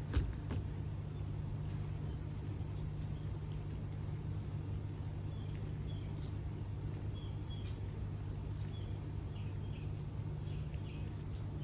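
Steady low mechanical hum, with a few clicks at the start and faint bird chirps over it.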